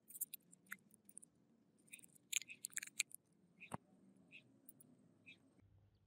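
A run of light clicks and taps as the small brass and plastic parts of an oil lighter are handled and fitted together, with one louder sharp click a little under four seconds in.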